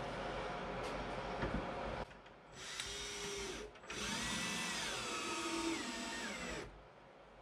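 Cordless drill driving a screw through a steel hinge into a pine-board wall. A short run, a brief pause, then a longer run of about two and a half seconds, its speed dipping and rising as the screw goes in.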